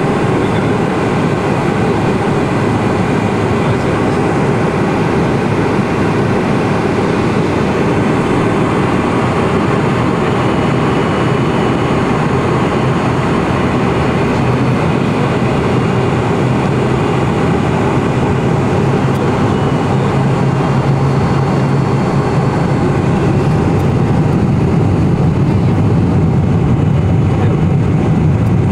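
Cabin noise inside a Boeing 747-400 on the ground: a steady rumble of the jet engines and rolling wheels, growing a little louder and deeper over the last several seconds.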